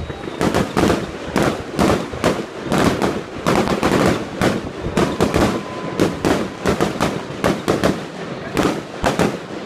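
Fireworks display going off: a rapid, uneven string of bangs from shells and rockets bursting, several a second.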